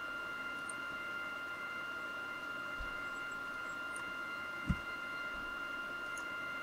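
Steady electrical whine of several high tones over a constant hiss, with one short low thump about two-thirds of the way through.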